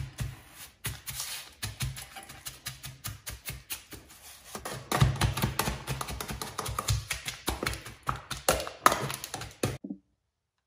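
Background music with a quick, tapping percussive beat that gets denser and louder partway through, then cuts off suddenly near the end.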